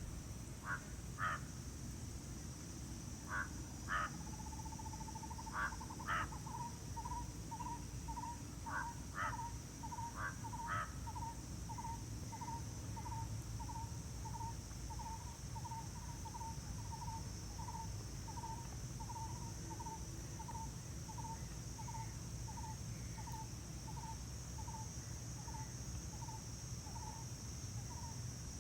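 Crows cawing in short calls, often in pairs, over the first ten seconds or so, while from about four seconds in another bird repeats a single hollow hooting note about one and a half times a second without stopping. A steady high insect hiss runs underneath.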